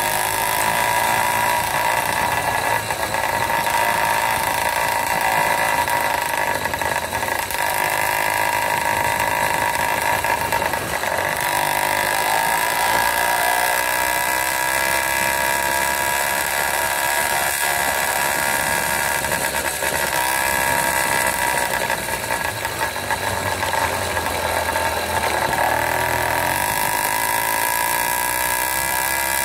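Wildcat PK80 80cc two-stroke motorized-bicycle engine running under way. Its engine note rises and falls a few times with the throttle.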